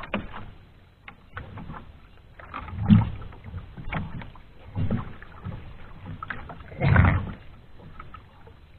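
Sea water lapping and slapping against the hull of a small outrigger boat, in irregular low swells every couple of seconds; the one near the end is the loudest.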